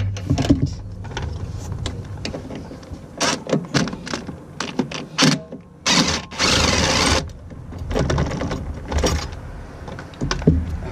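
Clicks, knocks and rattles of a hand tool and metal parts being worked in a truck's engine bay while bolts are removed. About six seconds in comes a loud, harsh noisy stretch lasting about a second.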